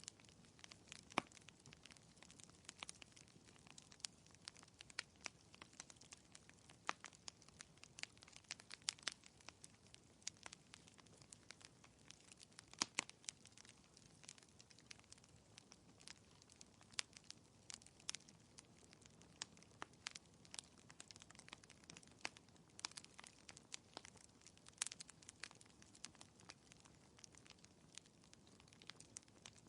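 Fireplace crackling: irregular sharp pops and snaps over a faint low hiss.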